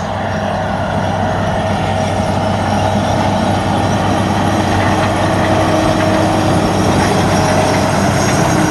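Large farm tractor's diesel engine running steadily under load as it pulls a grain drill drilling soybeans, growing slightly louder as it comes close.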